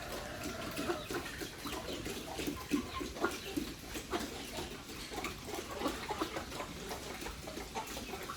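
Pigs grunting: many short, low grunts overlapping one another, with scattered sharp clicks.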